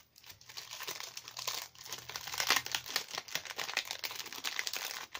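Clear plastic sleeve of a packet of metal heart stickers crinkling as it is handled and pulled open, a dense crackle that is loudest about halfway through.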